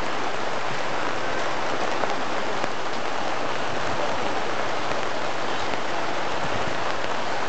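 Heavy downpour: steady, even hiss of rain falling.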